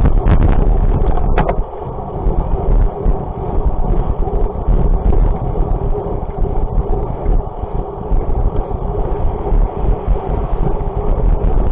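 A vehicle on the move: a steady low rumble with a faint engine note, with heavy wind noise on the microphone and a couple of brief knocks about a second and a half in.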